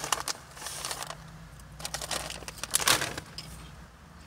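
Crinkling of a foil potato-snack bag in a few short spells, with crunching of the snacks being eaten.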